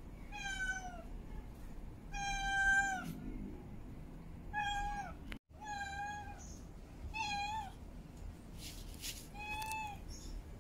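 Female cat in heat meowing over and over: six long calls a second or two apart, each holding a steady pitch and dropping away at the end.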